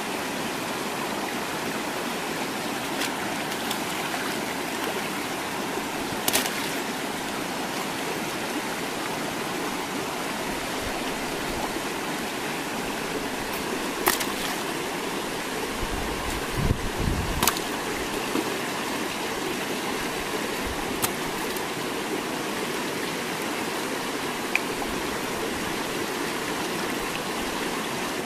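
Shallow rocky stream rushing steadily. A few sharp knocks and some splashing come from stones and water being disturbed by hand and with a digging tool, most of them around the middle.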